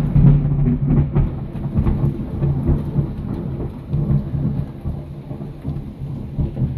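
A long peal of thunder rumbling deep and loud, swelling and easing as it slowly fades, over the steady hiss of heavy rain.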